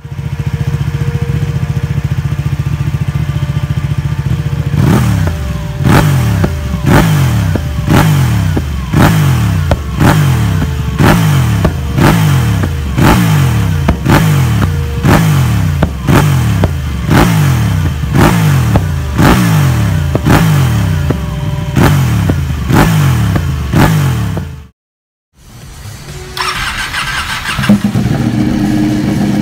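Ducati 1199 Panigale's Superquadro V-twin breathing through a Termignoni full exhaust. It idles for a few seconds, then is revved in quick throttle blips about once a second, the pitch jumping up and falling back each time. After a short silent cut near the end, a Panigale on an SC-Project titanium exhaust idles, stepping up a little just before the end.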